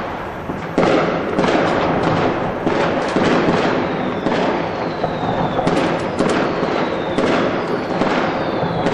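Fireworks going off in a dense, continuous crackle packed with sharp bangs, turning louder about a second in. Faint whistles falling in pitch come and go in the second half.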